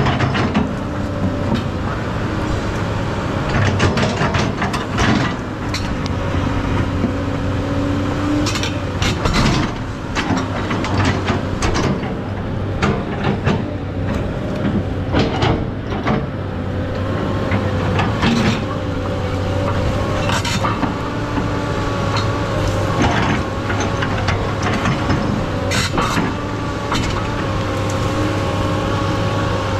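SANY SY215C tracked excavator working, its diesel engine running steadily under load with a wavering hydraulic whine, and many sharp clanks and knocks from the machine as it goes.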